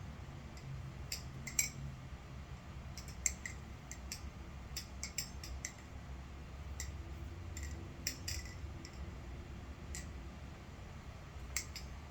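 Titanium butterfly knife being flipped: irregular sharp metallic clicks and clacks as the handles swing around and knock together, some with a brief ring.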